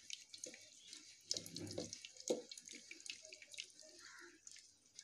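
Cooked dal being mashed with a wooden mathu (hand churner): irregular wet sloshing and splashing with light knocks.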